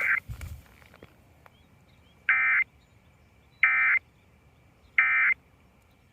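Three short bursts of Emergency Alert System SAME digital data tones, a harsh buzzing screech about a second and a half apart. Bursts this short are the end-of-message code that closes an EAS transmission.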